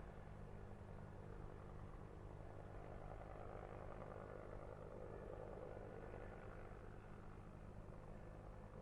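Helicopter in flight, heard faintly: a steady low drone of rotor and engine that swells a little midway.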